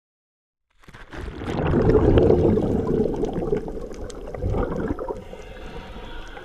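Water rushing and gurgling, starting about a second in, loudest soon after, then easing off.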